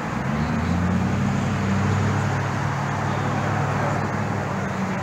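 A motor vehicle's engine running with a steady low hum that comes in at the start, over general street traffic noise.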